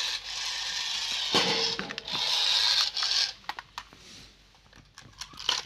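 Toy remote-control excavator's small battery-powered motors and plastic gears whirring as it drives back and forth, cutting off about three seconds in; a few light clicks follow.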